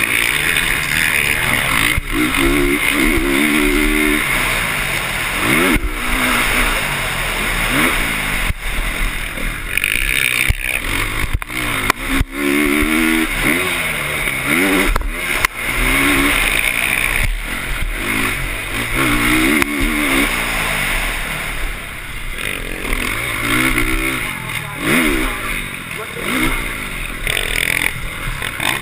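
Motocross bike engine heard from on board, revving up and down over and over as the rider works the throttle and gears around the track, with occasional sharp knocks.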